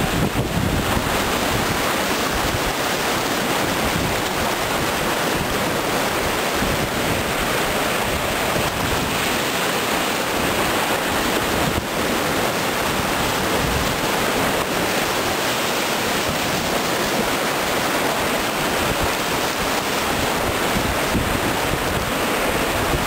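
Whitewater rapids rushing steadily around a cataraft riding through them, heard from on board.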